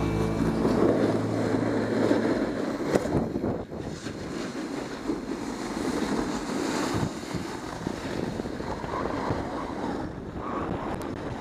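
Wind rushing over an action camera's microphone while riding down a groomed ski piste, with the hiss and scrape of edges sliding over packed snow.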